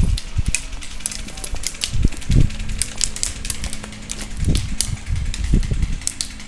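Footsteps and shuffling on dry leaf litter and twigs: irregular crackling with dull thumps of movement, as a player moves into cover and crouches against a tree trunk.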